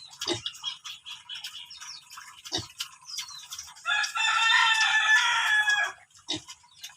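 A rooster crows once, starting about four seconds in and lasting about two seconds, over scattered chirps of small birds and a few dull thumps.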